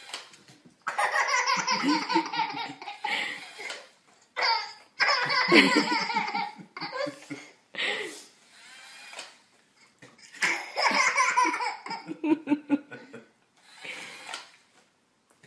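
A baby laughing hard in several bouts of belly laughter, each a few seconds long, with short pauses between.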